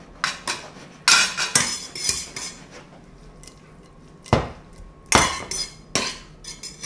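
Metal tongs clattering against a stainless steel sauté pan as pici pasta is tossed and stirred in its sauce: a run of sharp, irregular clinks and scrapes, loudest about a second in and again past the four-second mark.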